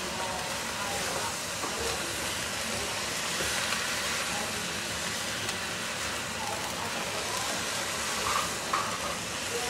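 Garlic chive stems, squid and pickled mustard greens sizzling in a wok while a spatula stirs and turns them: a steady hiss.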